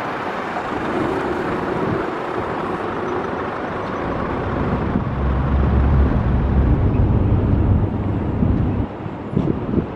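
Steady roadway traffic noise, joined about four seconds in by the deep rumble of a heavy truck's diesel engine close by, which falls away near the end as wind starts buffeting the microphone.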